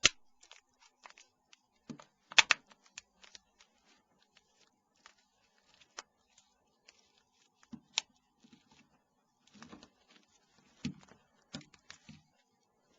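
Small plastic clicks and snaps of a Nokia 6290's cover-upper parts being squeezed together by hand. Irregular sharp clicks, mostly faint, with a few louder snaps spread through.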